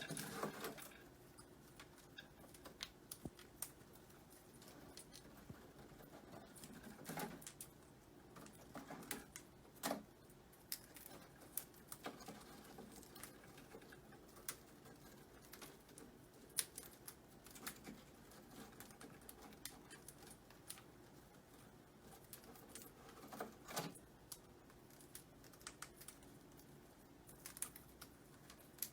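A parrot's beak picking and chewing at a wooden toy: faint, irregular clicks, taps and small cracks, with a few louder snaps now and then.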